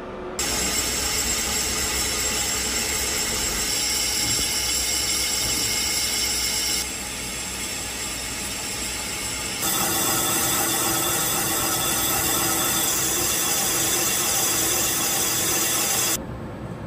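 Lathe cutting a large phosphor bronze bushing: a steady running noise of the spindle and the tool in the cut, starting about half a second in. It drops in level about seven seconds in, comes back louder about ten seconds in, and stops abruptly shortly before the end.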